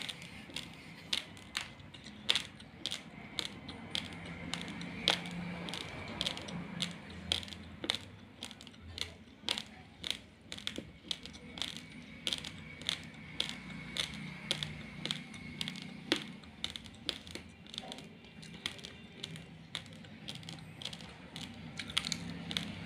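Raw basmati rice grains crunching between the teeth as they are chewed, a run of sharp cracks about two a second.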